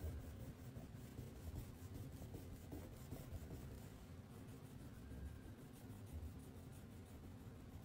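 A red colouring pen scratching quickly back and forth on paper as a drawing is coloured in, faint and continuous.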